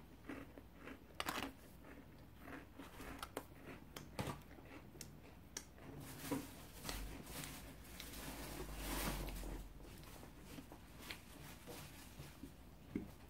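Chewing a crunchy cookie: scattered soft crunches and mouth clicks, with a few seconds of rustling and a low rumble in the middle.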